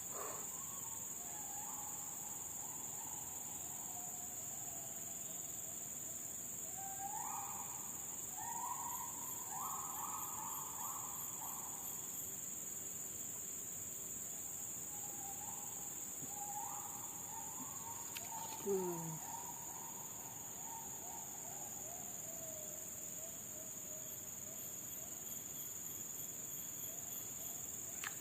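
Steady chorus of forest insects, with three long phrases of pitched calls from a forest animal, each stepping down in pitch. A brief sharp, falling sound cuts in about nineteen seconds in.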